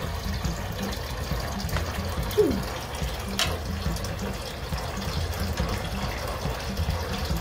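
Steady running and trickling water in a turtle tank, the constant wash of an aquarium's water flow, with one short click about three and a half seconds in.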